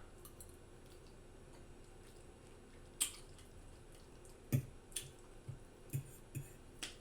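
Wet mouth smacking while chewing food: a run of about seven sharp, irregular smacks starting about three seconds in, with little before that.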